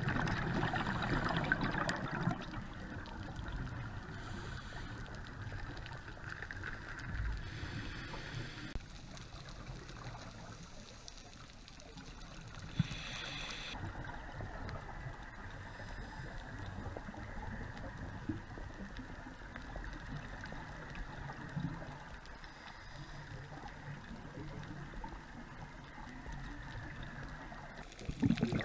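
Underwater sound picked up by a camera in its housing: a steady muffled water rush, broken every few seconds by louder bursts of bubbling from a scuba diver's exhaled air.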